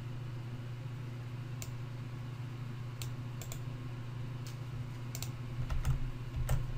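Scattered, irregular clicks of computer keys, about eight in all, with two heavier key strikes near the end, over a steady low electrical hum.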